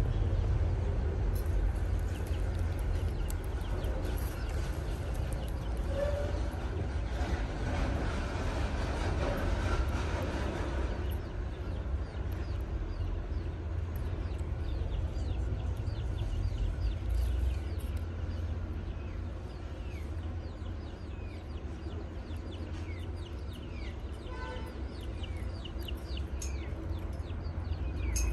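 Steady low rumble under a light background hiss. From about halfway, many short high chirps fall quickly in pitch, with a brief call near the end.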